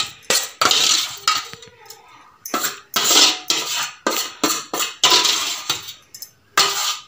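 Stainless-steel bowl and steel mixer-grinder jar clanking and scraping in a series of irregular strokes as soaked semolina is scraped out of the bowl into the jar.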